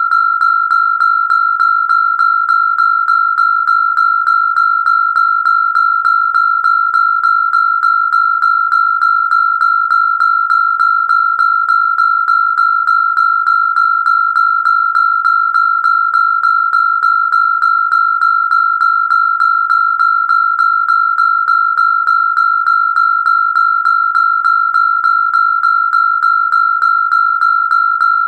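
Electronic alarm sounding one continuous high-pitched tone without a break, pulsing slightly about twice a second.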